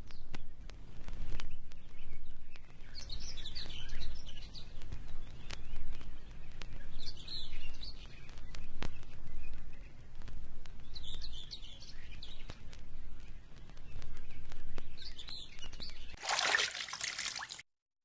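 Songbirds calling in a forest, short high phrases every three to four seconds, over a steady low rumble. A brief rushing whoosh near the end, then the sound cuts off.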